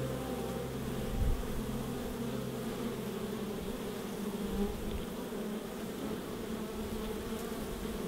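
Honeybees buzzing at a hive entrance: a steady, dense hum from many bees flying and crawling around the entrance slot. A brief low thump comes about a second in.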